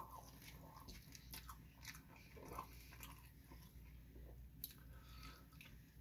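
Faint close-up chewing of a mouthful of hamburger, with irregular small wet mouth clicks.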